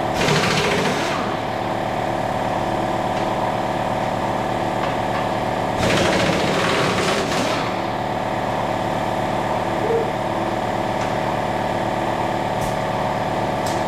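Air compressor motor running steadily with a droning hum, and a blow gun hissing out two blasts of compressed air, one at the start and one about six seconds in, lasting a second or two each.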